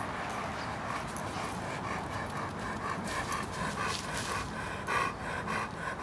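A dog panting rhythmically, about three breaths a second, with one stronger breath near the end.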